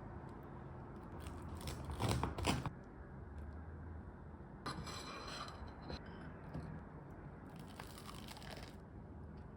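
Quiet food-preparation handling sounds: rustling, rubbing and light scraping with scattered small taps, with a louder cluster of clatter about two seconds in and another burst of rustling around five seconds.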